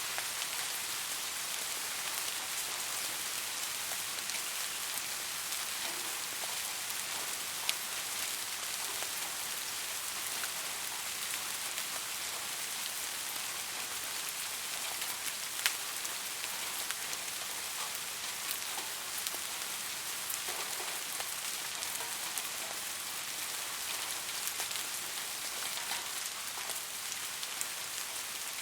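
Steady rain falling, a dense even hiss with scattered sharper drop impacts, two louder ones about 8 and 16 seconds in.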